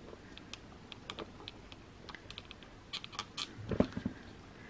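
Small plastic clicks and taps as the head and body of a plastic collectible figure are handled and pushed together, with a louder, deeper knock a little before the end.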